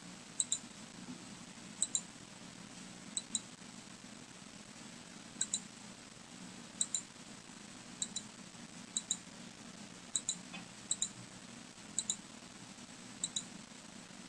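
Computer mouse button clicking, each click a quick pair about a second or so apart, as points are set one by one with a drawing program's pen tool. A faint steady low hum lies underneath.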